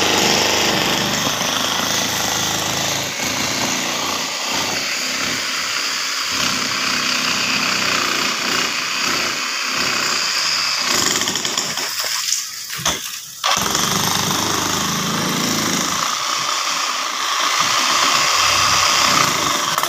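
Corded electric demolition hammer chiselling into hard adobe ground, running steadily with a dense rattling hammer noise. It stops briefly about twelve seconds in and then starts again.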